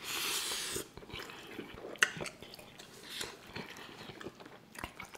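Close-miked wet chewing and biting of soft, cheesy tacos, with a loud burst of noise in the first second and a few sharp clicks later.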